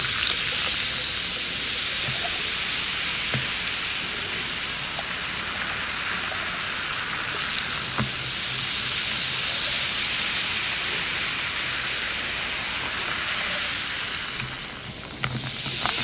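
Ginger Sprite soda poured over ice in a glass, fizzing steadily with a steady hiss and a few faint clicks from the ice. There are a couple of small knocks near the end.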